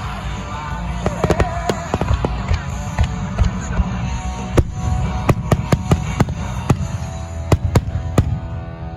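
Aerial fireworks bursting in quick succession, sharp cracks coming thicker in the second half and stopping shortly before the end, over music from the show's loudspeakers.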